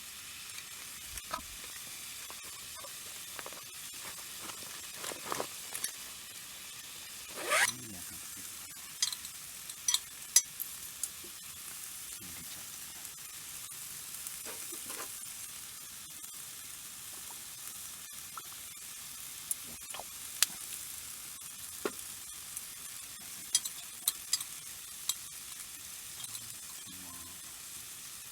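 Food sizzling steadily in a small single-person jingisukan grill pan. Scattered clicks and light knocks of utensils sound over it, with one louder scrape about seven seconds in.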